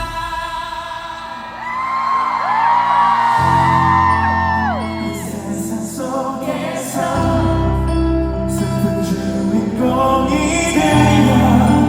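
Live pop song at a concert sound check: a singer holding long, sliding notes over a band, with heavy bass notes coming in about three seconds in.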